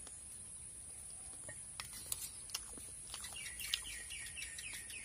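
A bird calling in a rapid run of short, downward-slurred chirps that starts about three seconds in. A few faint clicks come before and among the chirps.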